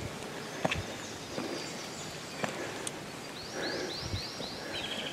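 Outdoor ambience with a few scattered footsteps scuffing on stone steps. About three and a half seconds in a bird gives a quick run of about four high, down-slurred notes, and a buzzy trill starts near the end.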